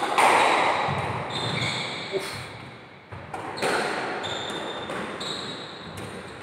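Squash rally: the ball cracks off rackets and the court walls about once a second, each hit echoing round the court, with rubber-soled shoes squeaking on the wooden floor.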